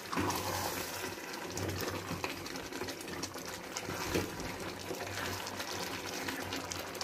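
Wooden spoon stirring chickpeas and chicken through a watery gravy in an aluminium pot, the gravy bubbling and sloshing on medium heat, with small ticks of the spoon against the pot and one louder knock about four seconds in.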